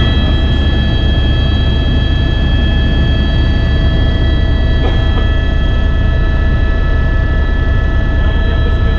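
Helicopter in flight heard from inside the cabin: a loud, steady rumble of rotor and engine with several steady high whining tones over it.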